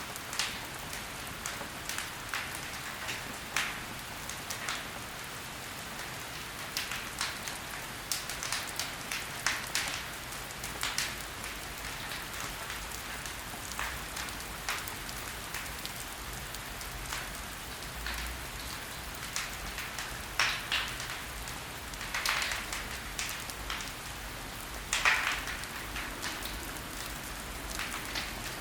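Burning logs crackling in a fireplace: a steady soft hiss with frequent, irregular pops and snaps, a few of them louder in the second half.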